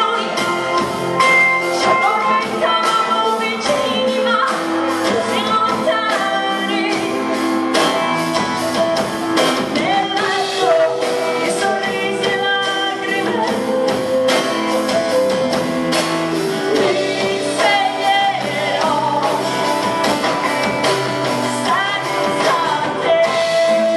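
Live rock band playing: a woman sings the lead over strummed acoustic guitar, electric guitar, bass and drums, in a large hall.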